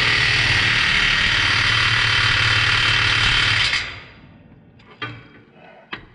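Cordless impact wrench hammering on a bolt, very loud, tightening the drill's mounting bracket; it stops about four seconds in, followed by a couple of short metallic clicks.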